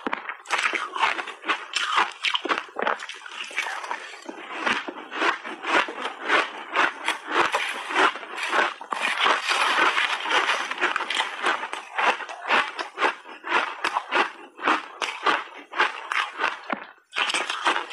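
Refrozen shaved ice crunching and crackling close to a lapel microphone as it is chewed and as a metal spoon scrapes through the icy tray, a dense run of rapid crisp crackles.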